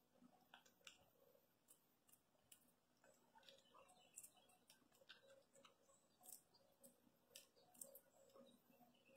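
Faint, irregular little clicks and cracks of a gray squirrel chewing and cracking peanuts and sunflower seeds, several a second.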